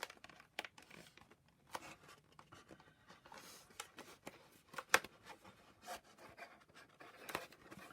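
Soft rustling, scraping and scattered light taps of thin card being handled as glued tabs are pushed into place.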